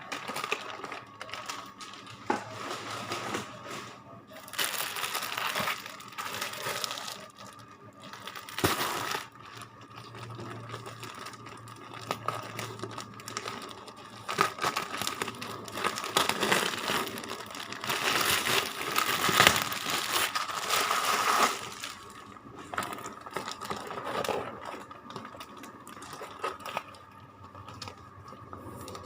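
Packaging being handled, rustling and crinkling in irregular bursts, with a few light knocks.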